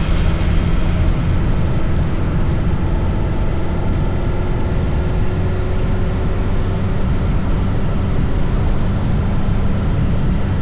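Motorcycle under way: steady engine note mixed with wind and road noise from riding at a constant speed.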